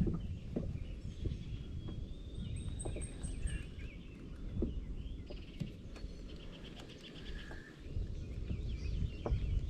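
Wind rumbling on the microphone with small birds chirping and trilling in the background, and a few light clicks.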